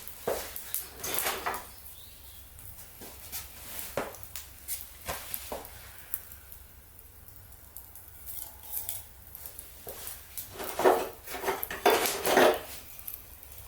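Intermittent clinks and knocks of metal and wood being handled around a fire stand, with a few louder knocks near the end.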